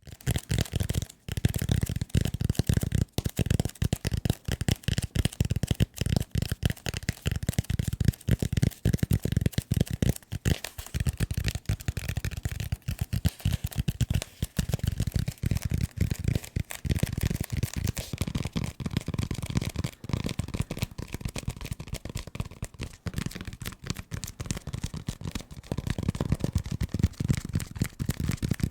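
Fast, aggressive tapping on assorted desk objects, a dense, uneven run of quick taps and knocks, many a second, with a solid thud to many of them.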